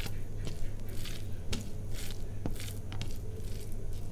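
Fingers mashing and mixing steamed rice with banana-flower curry on a plate: a string of short, irregular wet squishing and scraping strokes, over a steady low hum.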